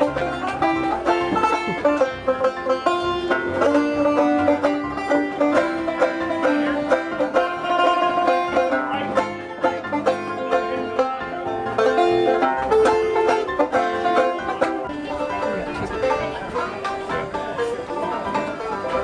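Banjo music, a steady stream of quick plucked notes.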